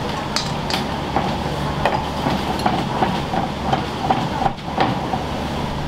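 Ramen shop kitchen at work: a steady low hum with scattered clinks and knocks of utensils and dishes throughout.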